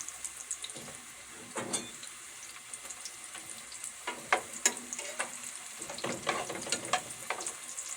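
Green plantain pieces frying in hot oil: a steady sizzle with scattered crackles and pops.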